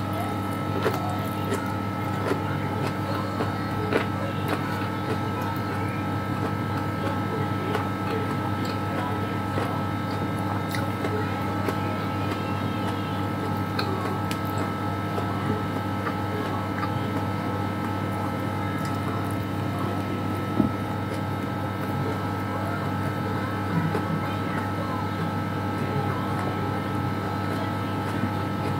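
Steady electrical hum of a running household appliance, with a fixed higher whine over it. Faint small clicks and mouth sounds of someone eating rice, fried fish and boiled string beans with the fingers come through it.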